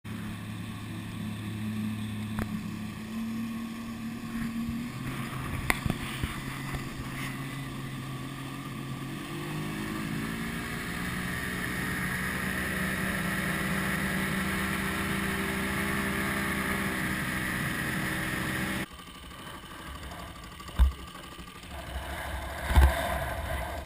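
Outboard motor driving a fishing boat at speed, with the rush of the wake. Its pitch shifts, then rises smoothly as the boat speeds up and holds steady. About five seconds before the end it cuts off abruptly to quieter water sounds with two sharp low thumps.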